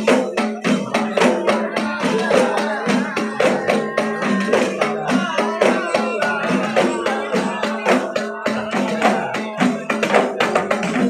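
Group of terbangan frame drums (rebana) beaten together in a steady, driving rhythm, with men chanting dikir over the drumming.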